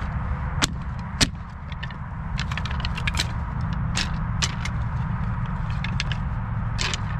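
Sticks of firewood and kindling clacking against each other as they are laid in a fire pit. Scattered sharp knocks, with two loud ones in the first second or so and a cluster a few seconds in, over a steady low rumble.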